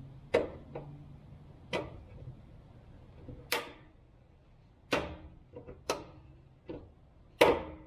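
Sharp metallic clicks and snaps at irregular intervals, the loudest near the end, as a hand tool works at the big retaining snap ring on a fuel pump module in the top of the fuel tank, the tool catching and slipping on the ring.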